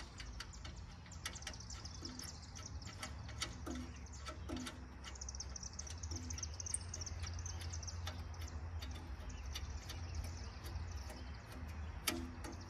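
Birds chirping over a steady low rumble, with scattered light clicks and taps of hand tools on the tractor's engine parts and one sharper click near the end.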